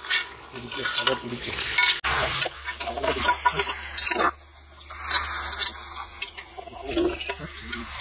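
A perforated steel ladle stirring raw prawns through hot, sizzling masala in a large metal cooking pot, scraping against the pot. The sound drops away briefly a little after four seconds in.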